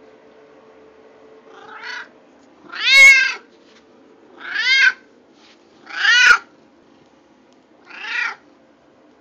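Domestic cat meowing five times, one every second and a half or so. Each meow rises and falls in pitch, and the second and fourth are the loudest.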